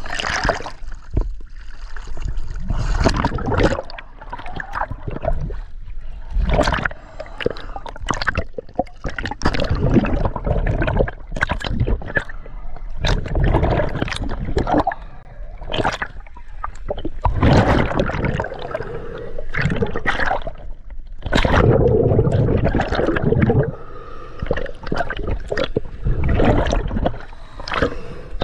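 Water sloshing and gurgling around a submerged camera as a spearfisher swims, coming in uneven surges with scattered clicks and knocks.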